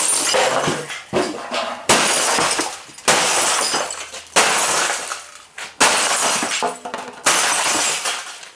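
Gateway CRT computer monitor being smashed with about six heavy blows, roughly a second and a half apart. Each blow is a sharp crack followed by the glass and plastic casing shattering and tinkling as it trails off.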